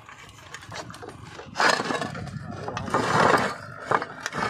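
Clay roof tiles clicking and knocking as they are handled, with two louder rasping scrapes about a second apart near the middle.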